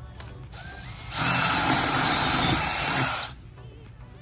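DeWalt 20V cordless drill boring a 5/16-inch hole down through a vinyl-covered pontoon deck. It spins up faintly at first, runs hard for about two seconds as the bit cuts through, then stops.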